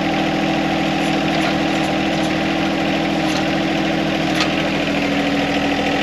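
John Deere compact tractor's three-cylinder diesel engine running steadily at low idle while its hydraulics raise the backhoe boom.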